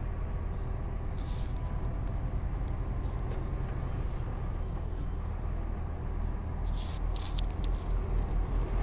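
Steady low drone of a lorry's diesel engine and road noise inside the cab while driving, with a few brief clicks or rattles about a second in and again around seven seconds in.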